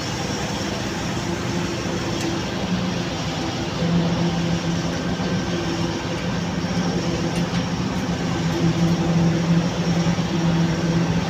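Concrete pump's engine running with a steady low hum that eases off and swells back a few times, while it pumps concrete into a wall's formwork.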